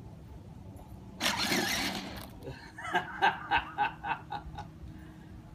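A person chuckling in a quick run of short pitched bursts about halfway through, after a breathy rush of air about a second in. Under it runs the steady low hum of a child's battery-powered ride-on quad.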